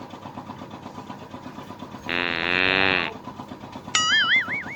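Fart sound effect from a Bluetooth speaker: a low, buzzing blast about a second long, about two seconds in. Near the end comes a short, high, wavering sound.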